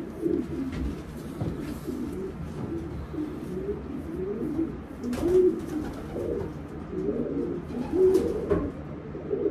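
Racing pigeons cooing in their loft, a continuous overlapping chorus of low, warbling coos, with a few faint clicks.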